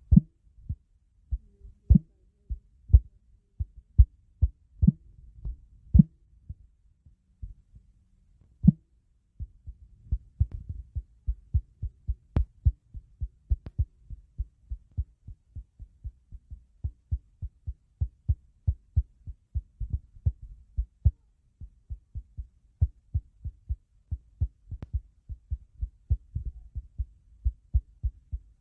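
A background music track reduced to a deep bass thump. The thumps come about once a second, then from about ten seconds in they quicken to two or three a second.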